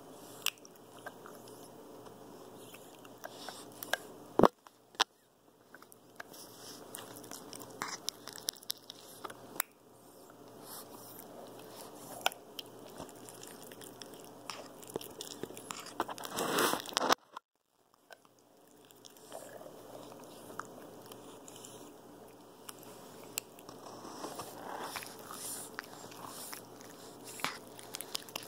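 Capuchin monkey biting and chewing on a toy held right against the microphone: irregular wet clicks, crunches and scrapes, with one sharp knock about four seconds in.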